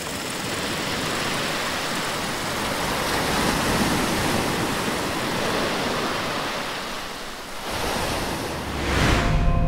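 Ocean surf washing onto a beach, a steady rush of noise that swells and eases. About nine seconds in, a brief whoosh leads into music with held tones.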